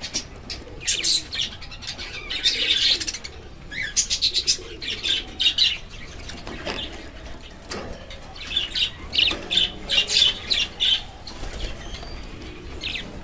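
Diamond doves flapping and fluttering their wings in a cage, in repeated bursts about a second long, with some cooing.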